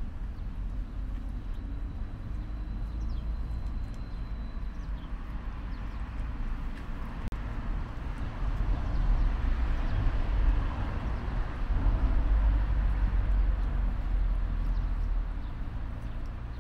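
A tabby cat eating dry kibble from a plastic bowl, with faint scattered crunching clicks. Under it a low outdoor rumble swells for several seconds in the middle and is the loudest sound.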